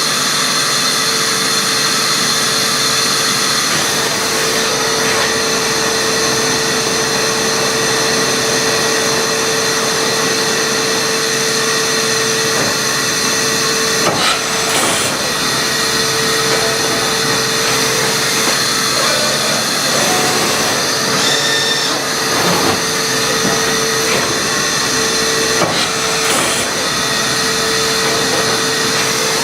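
Matsuura MAM72-63V 5-axis CNC machining center running under power: a steady mechanical whir with a constant whine, and a few brief clicks or knocks.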